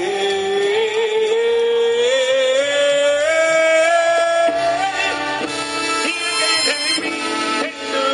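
Live salsa band with a male lead singer holding one long note that climbs slowly in pitch for about four and a half seconds, then the band plays on with shorter sung phrases.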